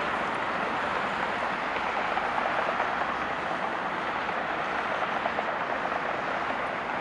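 Jet airliner engines heard from across an airfield: a steady, even noise with no breaks.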